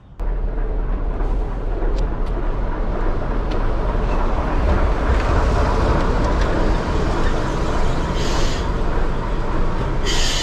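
Passenger railcar running slowly in along the platform, a steady low rumble. Short hisses come about eight seconds in and again near the end.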